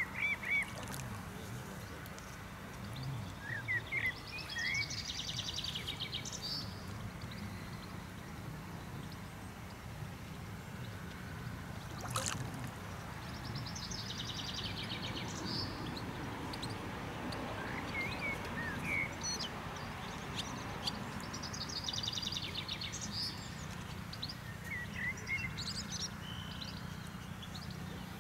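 A songbird singing in repeated short phrases, a few chirps followed by a rapid trill, every few seconds, over a steady low outdoor rumble. A single sharp click about twelve seconds in.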